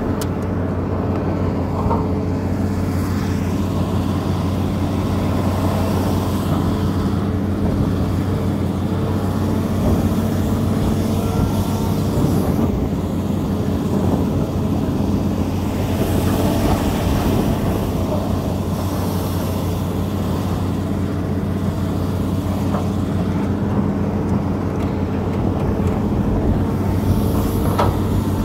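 Hydraulic excavator's diesel engine running steadily under working load as the arm and bucket dig mud, heard from inside the cab, with a few faint knocks.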